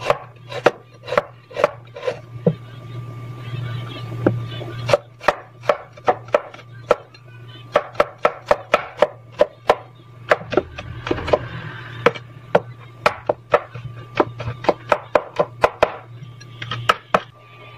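Kitchen knife chopping a carrot on a wooden cutting board: sharp knocks of the blade against the board, about three a second, in runs with short pauses.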